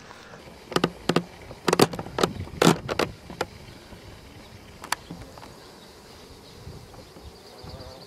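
Honeybees of a newly hived swarm buzzing at the hive entrance. A run of short, sharp knocks close to the microphone comes in the first three and a half seconds, with one more about five seconds in.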